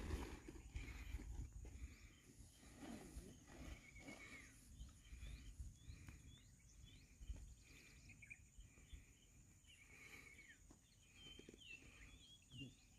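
Near silence: faint outdoor ambience with small birds chirping now and then in short, quick chirps over a faint low rumble.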